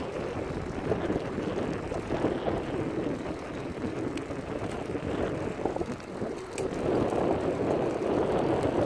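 Road bicycle ridden at a steady pace: tyres rolling on pavement and wind on the microphone over a chain drivetrain that runs peaceful and quiet after its noise was fixed.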